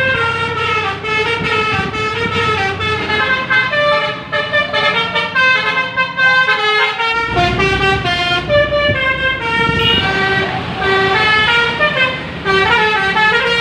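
Telolet bus horns: multi-tone musical air horns on Indonesian buses playing quick stepping melodies, one tune running into the next, over a low engine rumble.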